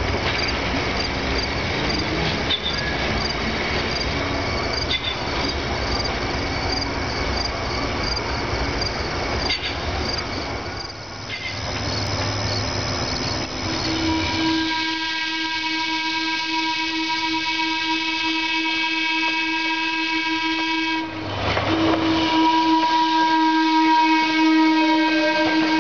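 Electric trolley car running on the rails as it approaches and passes close by. About fifteen seconds in, a steady pitched tone with several overtones sets in over the running noise. It breaks off briefly and resumes, louder, as the car goes past.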